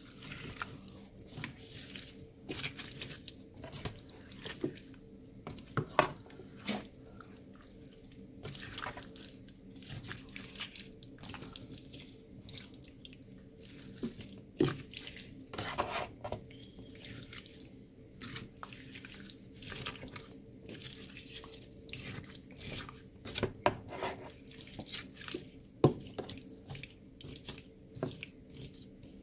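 A spatula stirring chunks of potato, carrot and celery into thick beef stew in a pan: irregular wet squelches and clicks of the utensil against the pan, over a faint steady low hum.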